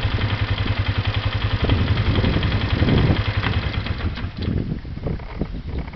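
A motor engine idles steadily with a fast, even pulse, growing weaker about two-thirds of the way through.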